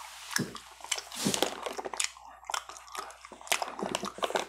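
Close-miked wet chewing of gum: irregular smacking and clicking mouth sounds in quick succession.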